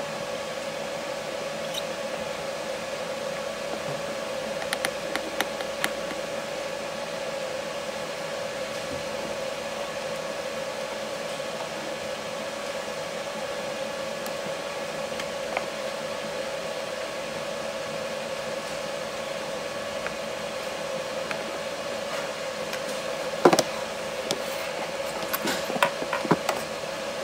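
Steady room hum with a few faint clicks of screws being turned into a Panasonic Toughbook CF-19's back plate. Near the end the laptop is turned over and set down on the table, giving one sharp knock and a few handling clicks.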